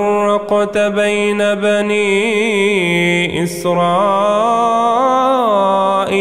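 A man chanting Quranic recitation in melodic tajweed style, drawing out long ornamented notes whose pitch wavers and bends, with a short break about three seconds in.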